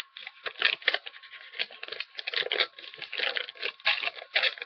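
Paper packaging rustling and crinkling, a quick irregular run of rustles and tearing.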